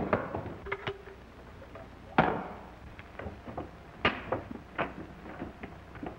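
Two sharp, echoing bangs about two seconds apart, the first about two seconds in, amid lighter clicks and knocks.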